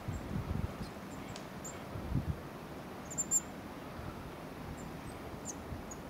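Tits giving a few short, very high, thin call notes, scattered and with a brief cluster about three seconds in, over a steady outdoor hiss. A few low muffled bumps sound in the first half.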